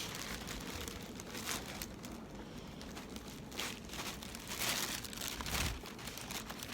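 A takeout food bag crinkling and rustling as it is handled and carried, in short irregular bursts that pick up around the middle.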